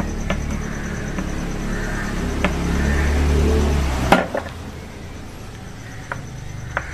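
A low hum that builds steadily and cuts off with a sharp knock about four seconds in, with scattered small metal clicks from screws being undone on a washing machine's inner drum.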